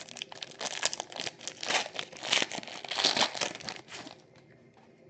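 Trading card pack wrapper crinkling and being torn open, in a dense run of crackles that stops about four seconds in.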